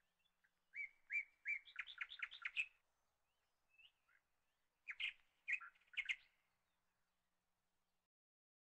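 A bird chirping: a run of short chirps that get quicker over about two seconds, then a few more chirps around the middle.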